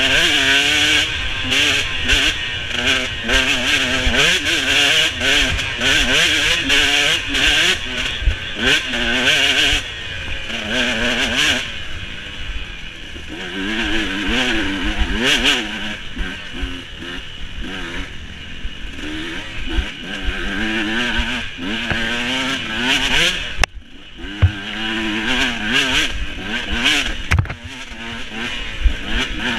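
Off-road dirt bike engine revving up and down over and over as it is ridden hard along a rough trail, with clattering knocks from the bike over the ground. The engine eases off for a stretch near the middle and cuts out briefly about three-quarters of the way through before picking up again.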